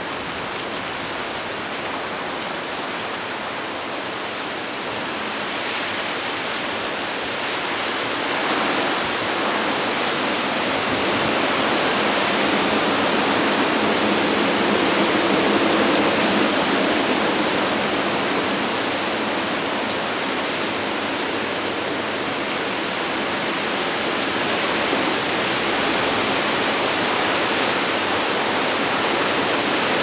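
Strong gusty outflow wind ahead of a squall line, rushing through the trees as a steady roar of noise. It swells louder a few seconds in, eases a little, then builds again near the end.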